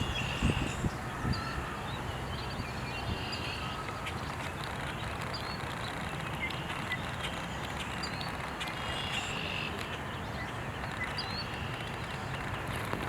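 Birds giving short high chirps every second or two, with a few longer high notes, over a steady background hiss and low hum.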